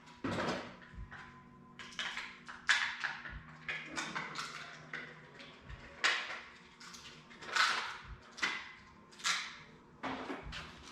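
Plastic packaging being torn open and handled, rustling and crinkling in a string of irregular short bursts.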